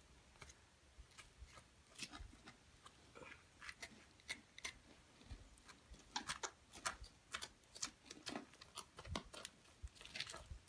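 Faint, irregular clicks and light scrapes of a knife and hands working on a deer carcass during skinning.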